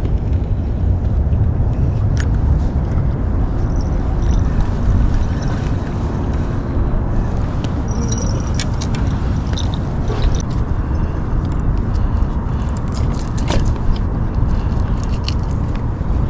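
Steady wind rumbling and buffeting on the microphone, with scattered small clicks and scrapes of fishing gear being handled.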